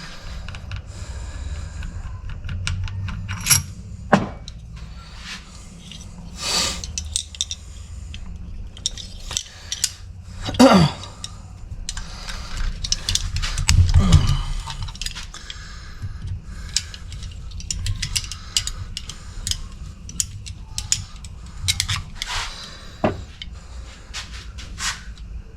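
Small metal parts and hand tools clinking, tapping and scraping while a tractor hydraulic valve is taken apart. Irregular clicks throughout, with longer scrapes about eleven and fourteen seconds in, over a low steady hum.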